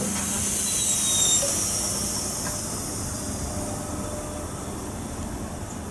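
Double-deck RER electric commuter train starting to move out of the station: a loud hiss that comes in suddenly and fades over the first few seconds, over a low rumble.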